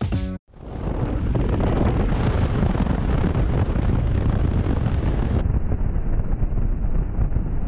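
Loud, steady wind noise buffeting the microphone of a camera on a moving motorcycle, with the ride's engine and road noise mixed in underneath. It starts about half a second in, just after music cuts off.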